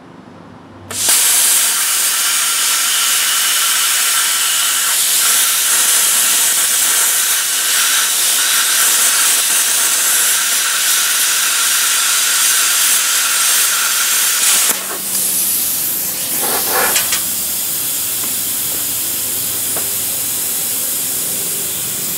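Plasma cutter cutting metal: the arc strikes about a second in with a sudden loud, steady hiss. About fourteen seconds in the cutting hiss stops and a softer hiss carries on, with a couple of light metallic clanks.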